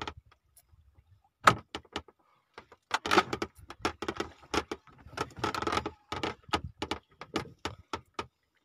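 Irregular clicks, knocks and rattles of gear being handled in a small fishing boat, coming thickest in the middle of the stretch.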